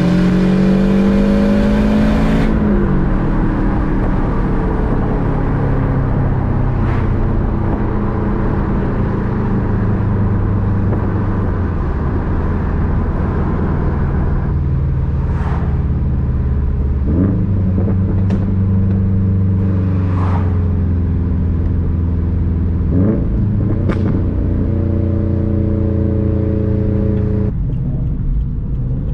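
Subaru WRX STI's turbocharged flat-four boxer engine running on the road with its rumble. The engine note climbs for the first two seconds, then drops at a shift. It holds steady through the middle and climbs again briefly twice in the second half.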